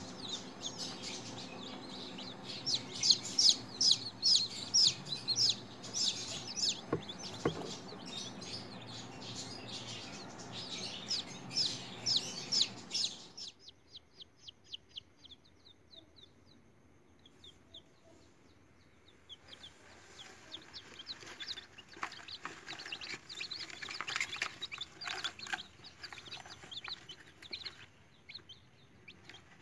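Newly hatched chicks peeping shrilly and rapidly, dense and overlapping over a low steady hum. About halfway through the sound cuts to fainter, evenly spaced peeps, then the peeping builds again.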